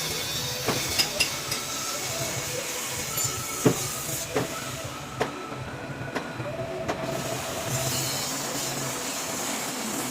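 Machine-shop noise: a steady machine hum and hiss with scattered metal clinks and knocks. The hiss drops away for a couple of seconds about halfway through.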